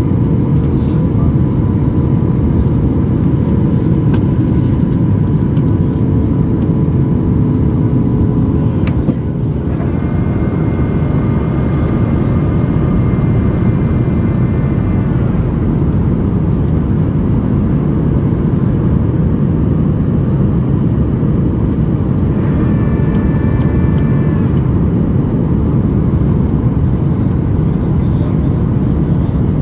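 Steady cabin noise inside a Boeing 737 MAX 8 in flight: the loud, even rush of airflow and its CFM LEAP-1B engines. About ten seconds in, a high whine sounds for a few seconds and fades, and a shorter one comes a little past the middle.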